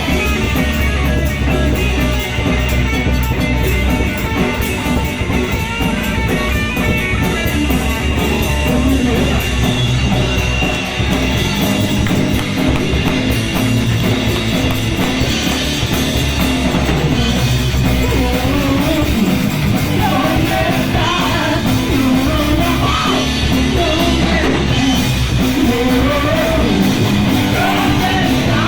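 A punk rock band playing live, loud and continuous: distorted electric guitars, bass and drum kit, with shouted singing in the second half.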